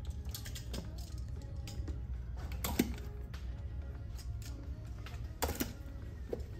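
Scattered clicks and scrapes of a cardboard toy box and its packaging being handled and opened, over background music.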